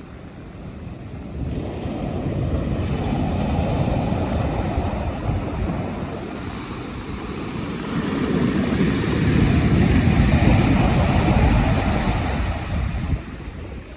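Pacific Ocean surf: waves breaking and washing up the shore, swelling twice, with the louder wave building about eight seconds in and falling away shortly before the end.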